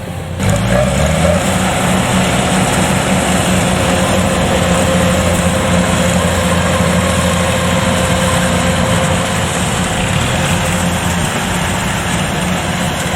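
Kubota DC105X combine harvester running steadily while harvesting rice: a loud, continuous engine and machinery drone with a steady whine on top. The engine's pitch shifts just after the start and then holds.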